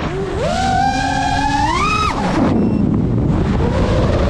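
FPV quadcopter's motors and propellers whining, the pitch climbing with throttle, dropping sharply about two seconds in to a low rushing rumble as the throttle is cut, then climbing again near the end.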